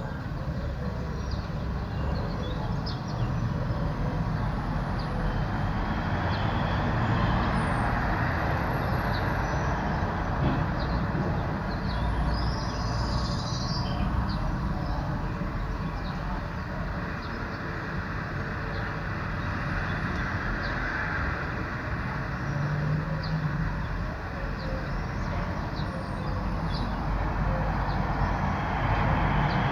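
Street ambience with road traffic: a continuous rumble and tyre noise from passing cars, rising and falling as vehicles go by, with faint bird chirps high above it.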